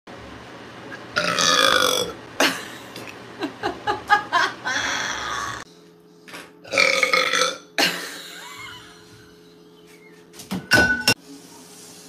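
A woman burping loudly several times, long drawn-out belches with short knocks and clicks in between.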